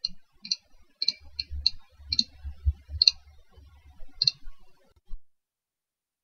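Irregular sharp clicks from a computer in use, about a dozen over five seconds. A faint low hum runs under some of them, and the clicks stop about five seconds in.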